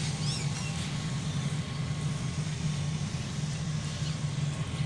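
Fire truck's engine running with a steady low drone. A short high chirp sounds just after the start.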